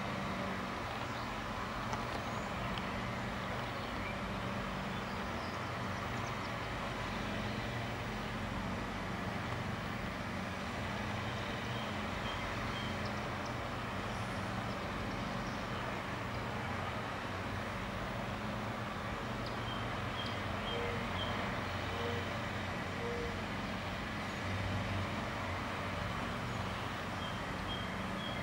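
Steady low rumble of distant road traffic, with a few short runs of quick high chirps from a small bird.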